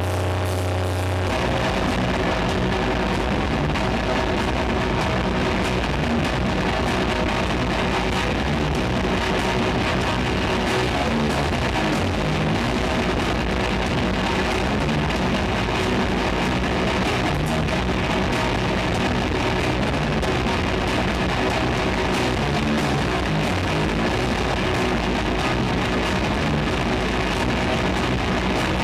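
Doom metal band playing live, with heavily distorted guitars in a dense, loud wall of sound. It opens with a held, droning chord for about a second before the full band comes in.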